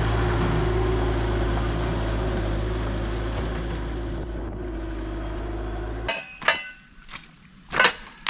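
Compact track loader's diesel engine running steadily, cutting off abruptly about six seconds in, followed by a few sharp knocks.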